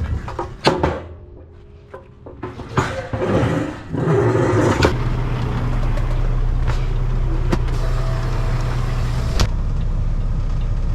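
A few clicks and knocks, then about four seconds in a heavy truck's diesel engine comes up loud and runs steadily, taken to be the Kenworth T660 as it gets ready to back up.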